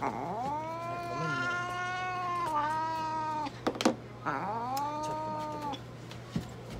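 Long-haired ginger mixed-breed cat yowling in long drawn-out meows: one of about three and a half seconds, then a shorter one of about a second and a half, with a few sharp knocks between them. The cat is calling out in protest while held down for syringe feeding.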